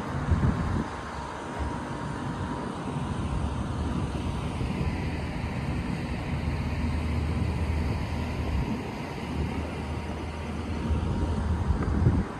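Steady road-traffic noise with a low vehicle rumble, and brief thumps about half a second in and near the end.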